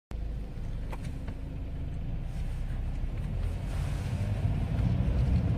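A steady low rumble, like road noise inside a moving vehicle, starting suddenly and slowly growing louder, with a couple of faint clicks about a second in.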